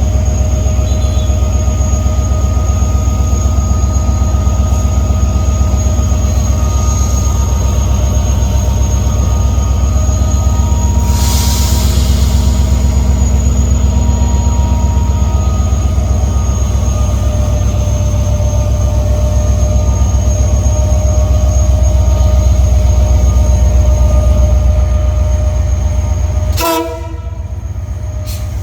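SNTF 060DS diesel locomotive working hard as it pulls a passenger train away: a loud, steady deep engine rumble with a steady whine above it. There is a brief hiss about eleven seconds in, and near the end the sound drops suddenly with a sharp knock or two.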